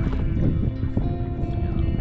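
Background music made of held notes that change every half second or so, over a low steady rumble.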